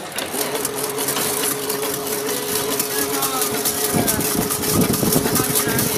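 Chain link fence (jali) making machine running with a steady motor hum. Voices come in over it in the second half.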